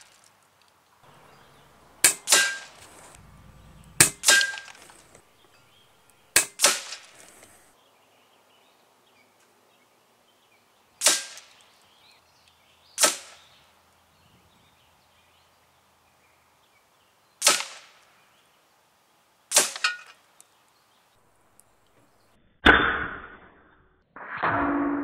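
Daystate Red Wolf .177 HP PCP air rifle firing a string of shots: eight sharp cracks a couple of seconds apart, the first three each doubled by a second crack a moment later. A longer, duller noise follows near the end.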